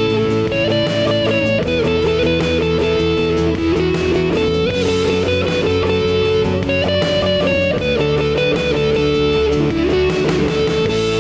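Praise band playing an instrumental passage: strummed guitar over sustained chords, with no singing.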